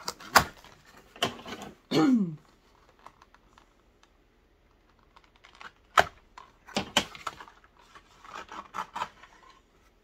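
Hands unpacking a doll outfit from its cardboard box and plastic packaging: scattered sharp clicks and light rustling, with a quieter stretch in the middle.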